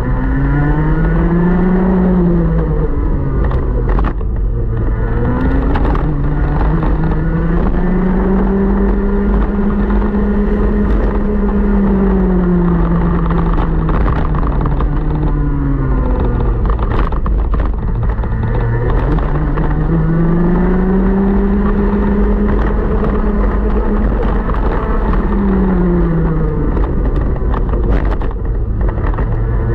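125cc TaG two-stroke kart engine at racing speed, heard from on the kart. Its pitch climbs and falls about four times, rising on the straights and dropping as the kart slows into the corners: a long climb through the middle, a low point a few seconds later, and a fresh climb near the end.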